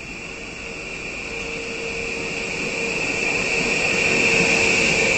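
HŽ series 6112 low-floor electric multiple unit running in alongside the platform. A steady high whine and a lower hum over the rolling rumble grow louder as the train draws close, loudest near the end.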